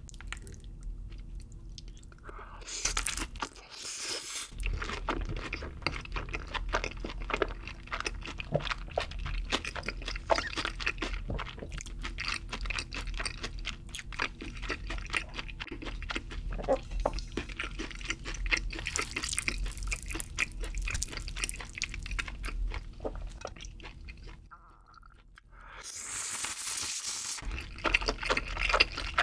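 Close-miked chewing and crunching of sauced Korean fried chicken (yangnyeom chicken), with dense wet crackles. There is a short lull about three-quarters of the way through, then louder crunching.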